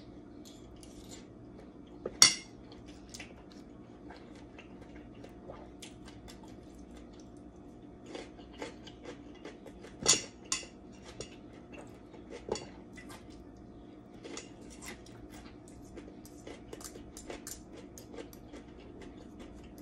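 Metal spoon and fork clinking and scraping against metal plates and a tray while eating: scattered small clicks, with a sharp louder clink about two seconds in and another about ten seconds in, over a steady low hum.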